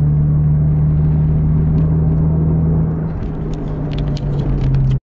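Vehicle engine running at a steady speed, heard from inside the cabin as a loud low drone; its pitch and level drop slightly about three seconds in, then the sound cuts off abruptly.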